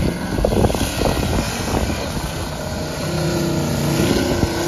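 Lifted pickup truck's engine working hard as the truck drives into deep snow drifts, with rough churning noise at first and a steadier engine note from about halfway on.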